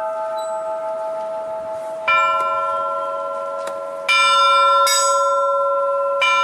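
Bells in a bell tower being played in turn: a ringing tone dies away, then a fresh strike comes about two seconds in and three more follow in the second half, each note ringing on.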